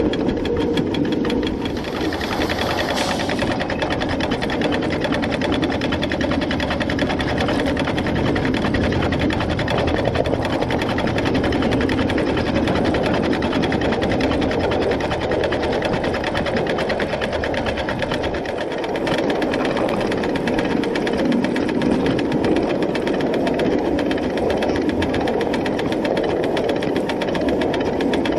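Inch-and-a-half scale, coal-fired Long Island Rail Road H-10 2-8-0 live steam locomotive running along 7½-inch gauge track, heard close up from on the engine: a fast, steady mechanical clatter of the running engine and its wheels on the rails. A brief hiss rises over it about two seconds in.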